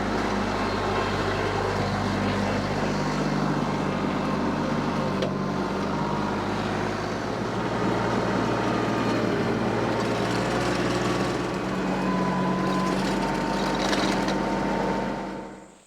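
Compact diesel tractor running under load as its post hole auger bores into the ground, the engine note shifting several times as the load changes. The sound drops away abruptly near the end.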